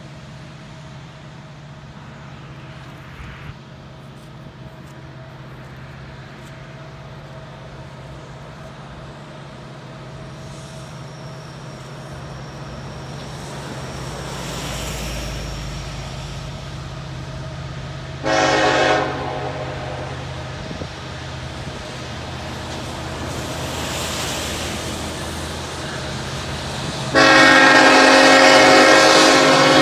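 Approaching Norfolk Southern freight train led by the Reading heritage-unit locomotive (an EMD SD70ACe), its diesel engines rumbling steadily and growing louder. Its multi-chime air horn sounds a short blast about two-thirds of the way through, then a loud long blast near the end, the grade-crossing warning.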